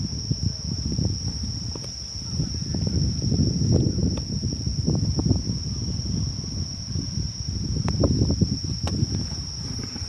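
Insects trilling steadily in one unbroken high tone, over an irregular low rumbling and a few faint clicks.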